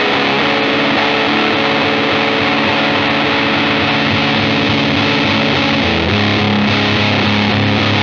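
Electric guitar through a Death By Audio Apocalypse fuzz pedal in its Dual J-FET mode: a heavily fuzzed chord held and sustaining, changing to a lower held note about six seconds in.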